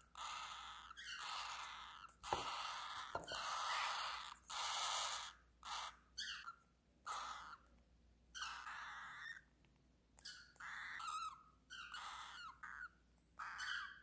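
Baby cockatiel chicks giving raspy begging calls over and over, each under a second long with short pauses between, as they are offered water from a dropper.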